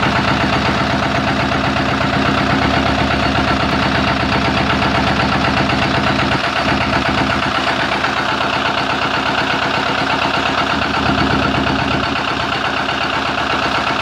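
Lister Autotruck LD2 two-cylinder engine running steadily at idle on its first run, a continuous even beat of firing strokes. The owner thinks the throttle and its cable still need adjusting.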